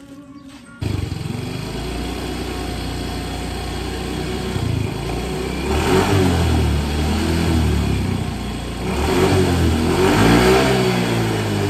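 A motor vehicle's engine starts up abruptly about a second in and runs steadily, then revs up twice, around the middle and again near the end.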